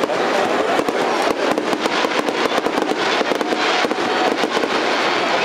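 Japanese fireworks (hanabi) bursting overhead, a dense, continuous run of cracks and bangs with no let-up.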